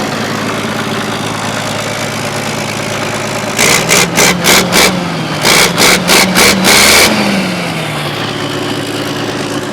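Chevy 350 small-block V8 running at idle. About three and a half seconds in comes a run of loud noisy bursts, about three a second, in two groups, as the revs rise a little. Then it settles back to a steady idle.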